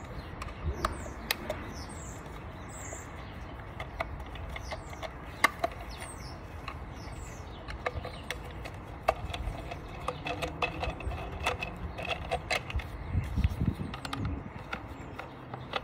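Small, irregular clicks and ticks of a screwdriver turning screws out of a Dyson V8's plastic cyclone housing as it is handled. Birds chirp in the background.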